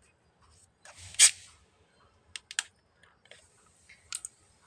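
Plastic screw cap being twisted off a small plastic juice bottle: a short crackle ending in one sharp snap about a second in as the seal breaks, then a few light plastic clicks.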